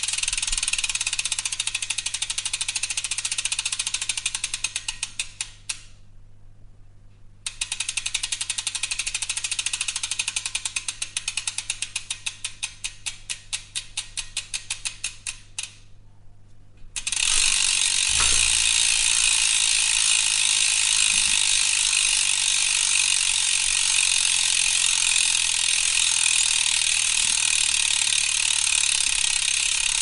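Bicycle rear freewheel ratcheting as the spun wheel coasts: a fast buzz of pawl clicks that slows into separate ticks and dies away, twice, then a steady fast buzz from a little past halfway. A single low thump comes just after the buzz resumes.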